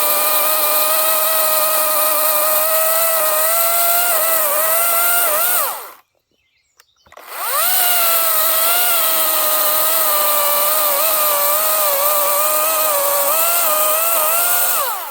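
WEN electric chainsaw motor running at full speed with a steady high whine. Its pitch sags at times as the freshly sharpened chain is loaded in a test cut. It winds down about halfway through, spins up again with a rising whine a second later, and winds down once more at the end.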